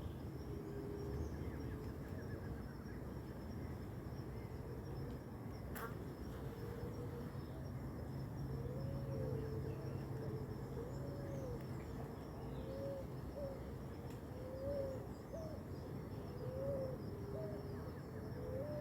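Forest ambience: a steady high insect buzz, with a bird repeating low, rising-and-falling whistled notes every second or two through the second half. A single sharp click sounds about six seconds in.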